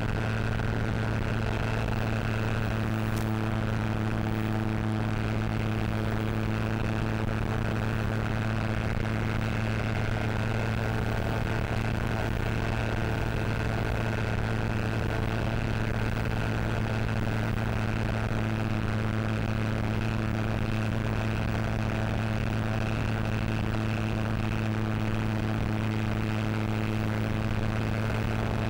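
Steady drone of a model Spitfire's electric motor and propeller in flight, picked up by the onboard cockpit camera, holding one pitch at constant throttle over a hiss of rushing air.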